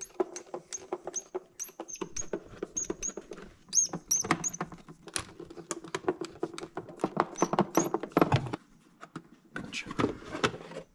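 Screwdriver backing small screws out of the plastic housing of a Honda Gold Wing GL1500 instrument cluster, with many quick clicks and short high squeaks, then plastic clicking and rattling as the housing is handled.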